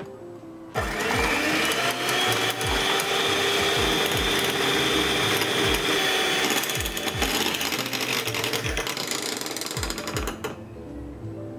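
Electric hand mixer switching on about a second in, its motor whine rising briefly and then holding steady as the beaters whip instant coffee, sugar and water into dalgona foam, cutting off suddenly near the end.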